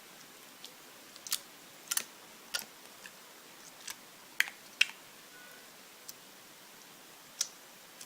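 Clear slime being squeezed and poked by hand, giving sharp, irregular clicking pops, about a dozen of them.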